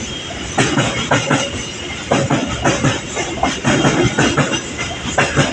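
A train rolling past close by: steady rumble with wheels clacking over the rail joints, the clacks coming in quick pairs and groups several times a second.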